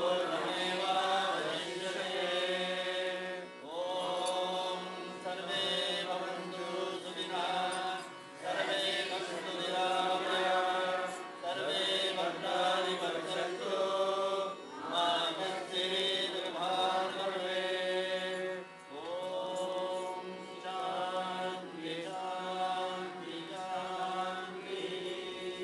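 Devotional Hindu chanting over a steady drone, sung in phrases of a few seconds each, growing a little quieter near the end.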